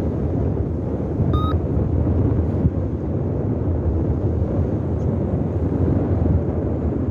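Airflow buffeting the microphone of a paraglider pilot in flight: a steady, loud rumbling wind noise. A single short beep sounds about a second and a half in.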